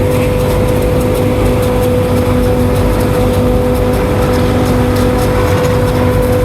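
Tractor and forage harvester running steadily under load, a loud even drone with a constant humming tone.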